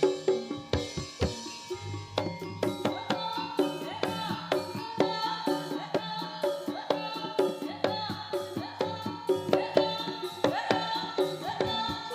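Live jaranan Senterewe music: a gamelan-style ensemble playing a fast, steady rhythm of hand-drum strokes over ringing struck metal notes.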